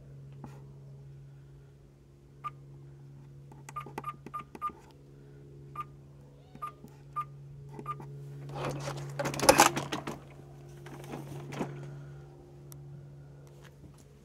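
Short electronic beeps from the robot lawn mower's keypad as its buttons are pressed, all at one pitch: single beeps with a quick run of four about four seconds in. A steady low hum runs underneath, and a louder noisy burst comes about nine seconds in, with a smaller one near eleven seconds.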